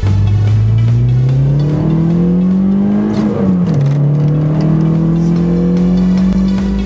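Peugeot 306 S16's 2.0-litre 16-valve four-cylinder engine accelerating hard, heard from inside the car. The revs climb steadily, fall sharply at a gear change about halfway through, then climb again.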